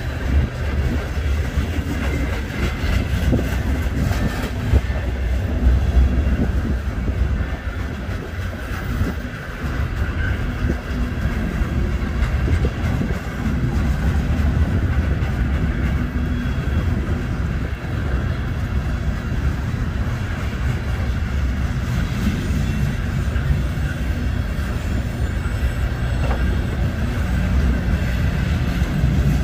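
Freight train cars rolling past: a steady rumble of steel wheels on the rails, heaviest in the low end.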